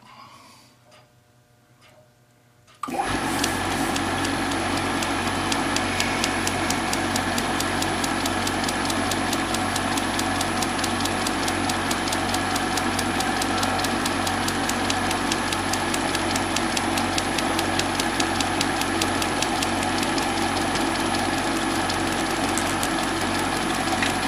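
Small bench lathe switched on about three seconds in, then running steadily with a fast, even ticking and a thin high whine, as the end of a clock's center shaft is turned down.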